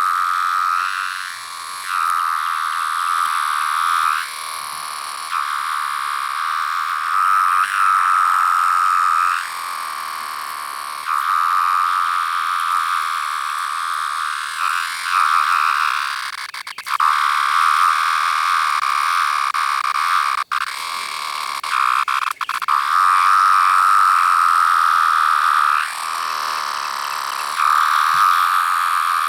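A 17-year periodical cicada, the striped Pharaoh cicada (Magicicada septendecim), making its whining call. The steady mid-pitched whine swells into loud stretches of one to three seconds and sinks back between them, with a few sharp clicks about halfway through.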